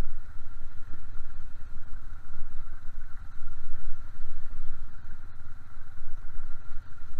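Small ATV engine running steadily on the move, with heavy wind rumble on the helmet microphone and a steady high tone throughout.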